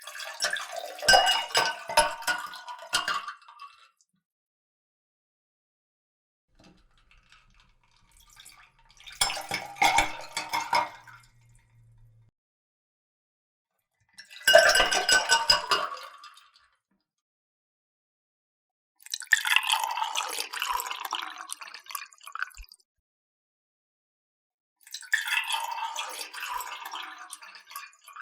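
Water poured into a cup in five separate short pours, each lasting a few seconds, with silence between them.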